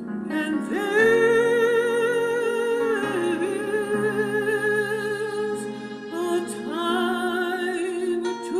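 A woman singing long, held notes with a wide vibrato, with a fresh note starting about a second in, at three seconds and again near the end. Steady low backing chords run beneath her voice.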